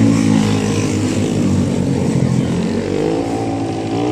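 A passing road vehicle's engine running with a steady drone, its pitch rising about three seconds in.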